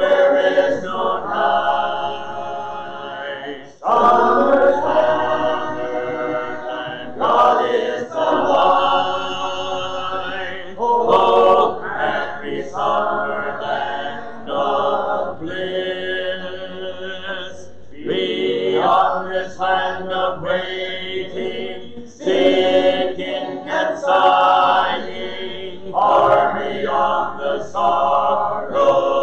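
A congregation singing a hymn a cappella, many unaccompanied voices together in phrases of a few seconds each with short breaths between.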